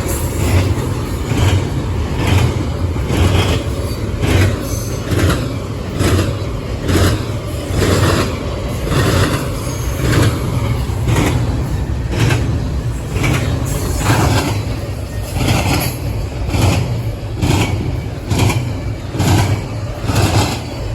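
A train rolling past, with a low steady rumble and a regular clack a little more than once a second as the wheels pass over rail joints.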